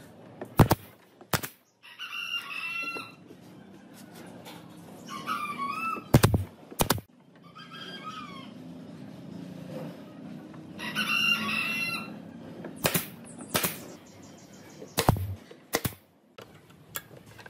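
Pneumatic brad nailer firing into wooden drawer pulls in quick pairs of sharp shots, four pairs in all, driving nails to fix each pull to a drawer front. Between the pairs, chickens call and a rooster crows several times, each call about a second long.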